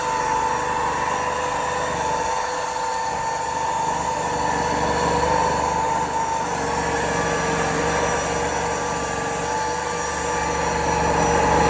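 Micol MC-021 cordless stick vacuum running steadily: a brushless motor whine with two steady tones over a rush of air.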